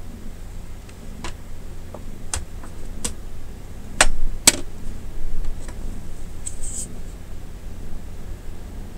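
Scattered sharp clicks and taps, the two loudest close together about four seconds in, over a low steady hum.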